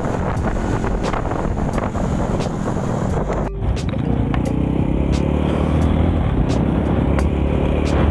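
Motor vehicle engine running with road and wind noise, cut off abruptly about three and a half seconds in and replaced by a steadier low engine hum.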